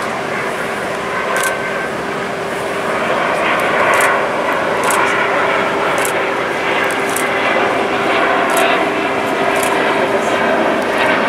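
Jet noise from the Airbus A350-1000's two Rolls-Royce Trent XWB-97 turbofans as it flies overhead: a steady rushing sound with a constant hum under it, swelling slightly a few seconds in. A scatter of short, sharp clicks sits on top.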